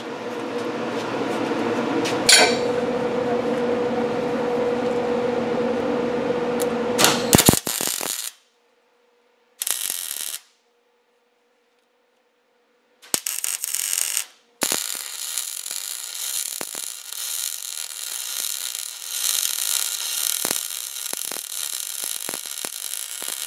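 MIG welder arc crackling steadily as beads are laid, with a low buzzing hum under it. It stops sharply about eight seconds in, comes back in two short bursts, then runs continuously through the second half.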